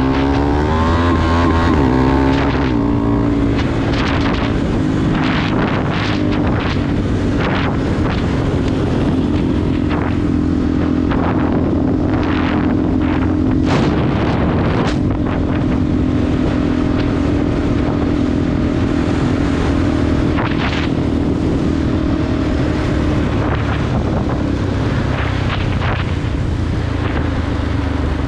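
Motorcycle engine running at speed on a rough dirt track, its revs rising in the first few seconds, with wind buffeting the microphone and repeated short knocks from the bumpy ground.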